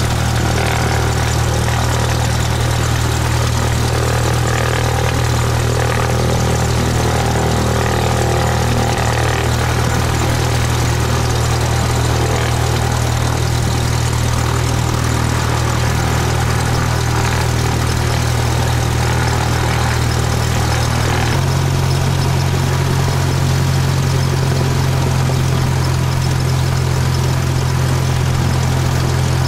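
Cessna 172's piston engine and propeller running steadily, heard from inside the cabin as a few strong low tones. About twenty seconds in, the engine note shifts abruptly a little higher.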